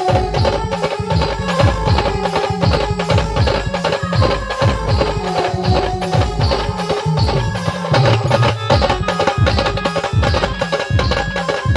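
Marathi band party (brass band) playing a folk tune: a sustained melody line over a loud, fast and steady drum beat.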